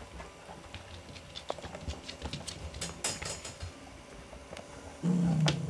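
A Maltese puppy chewing and pawing at soft rubber toys on a mat: small scattered clicks, taps and rustles. About five seconds in, a louder low-pitched sound cuts in.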